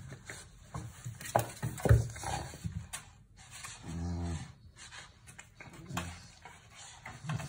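Vizsla puppy making a low, drawn-out vocal sound about four seconds in and a shorter one near six seconds, while rolling and rubbing on the floor against a cabinet. Two sharp knocks come in the first two seconds.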